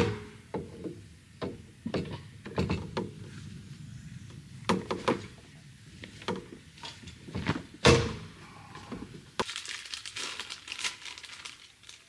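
Wooden-post canvas backrests being slotted into holes in a car's rooftop deck and fixed in place: irregular knocks and clunks of wood and metal, the loudest about eight seconds in. Near the end, a few seconds of light rustling.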